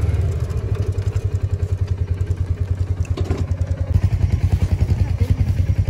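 Small off-road vehicle's engine running at low speed, a steady low putter pulsing several times a second, with a brief clatter about three seconds in.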